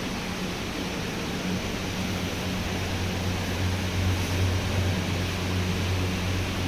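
Steady background machine hum over an even hiss. The low hum grows a little stronger about a second and a half in and then holds steady.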